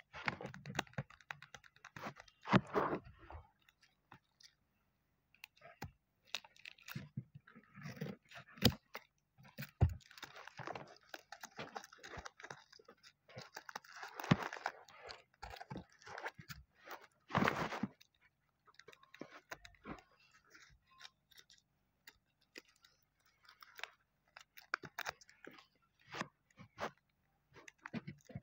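Tape-covered paper and plastic crinkling and rustling in irregular bursts, with short sharp clicks, as a handmade paper blind bag is cut open with scissors and its tape-wrapped contents are unwrapped by hand.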